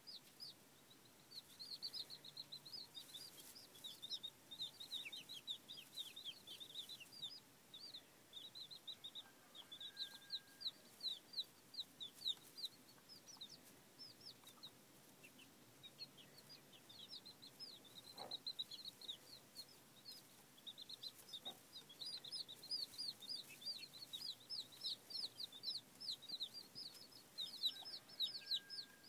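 Days-old chicks peeping almost without pause, a string of short, high chirps that each fall in pitch.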